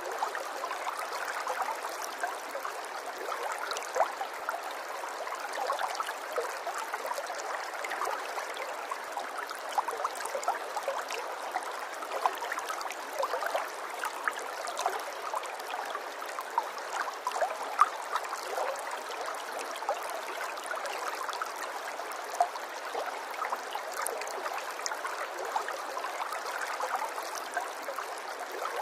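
Water running steadily in a small stream or trickle, with many small splashes and drips over the flow.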